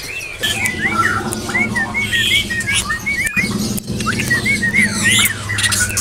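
Caged songbirds chirping: a string of short, arched whistled notes repeating several times a second, with other sharp bird calls scattered through, over a steady low hum. This is the lively, continuous singing that bird keepers call 'gacor'.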